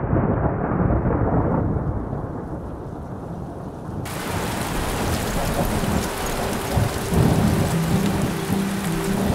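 Thunder rumbling for the first few seconds, then, after an abrupt cut about four seconds in, rain pouring down in a steady hiss.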